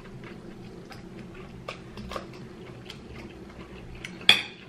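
Forks picking meat out of cooked king crab claw shells and touching the plates: scattered light clicks and taps, with one sharper click near the end.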